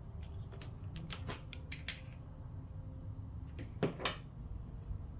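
Metal alligator-clip test leads clicking and tapping as they are unclipped from one capacitor's terminals and clipped onto another's: a run of light clicks in the first couple of seconds, then two louder snaps a little before the end.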